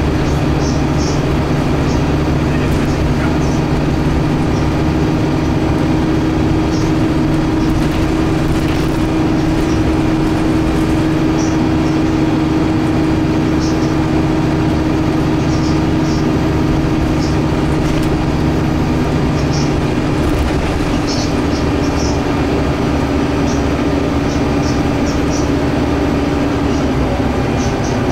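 Cabin sound of a Scania K280UB city bus under way: the steady drone of its rear-mounted diesel engine and drivetrain mixed with road noise, with light rattles from fittings. About two-thirds of the way through, the engine note drops a little and its deeper hum fades.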